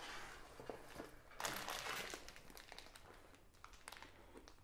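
Rustling and crinkling as a holdall bag is handled, loudest for under a second from about a second and a half in, with a few faint clicks.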